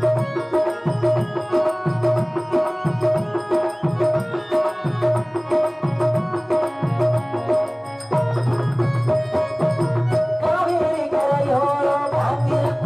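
Live stage music: tabla playing a steady rhythm under long held instrument notes. About ten seconds in, a voice begins singing over it.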